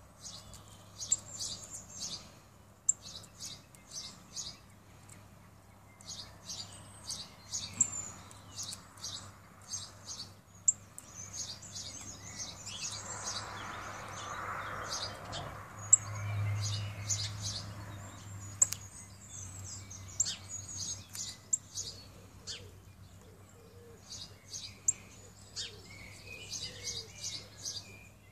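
Small songbirds chirping: many short, high calls in quick runs with brief pauses, over a faint steady low hum.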